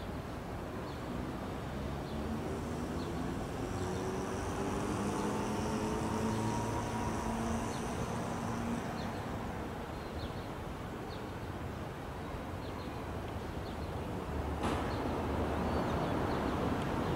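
Steady outdoor rumble with an engine's hum rising slowly in pitch through the first half, faint short chirps throughout, and a louder rush starting near the end.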